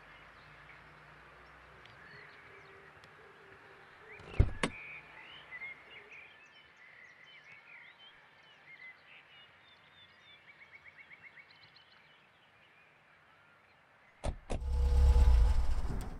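Outdoor ambience with small birds chirping and trilling faintly throughout. A sharp knock comes about four seconds in, and a loud low rumble lasts about a second and a half near the end.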